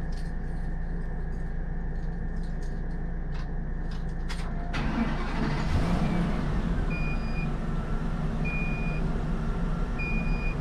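RV slide-out's electric motor running the slide out, a steady mechanical hum that rises and grows louder about halfway through, with short electronic beeps repeating about every second and a half near the end.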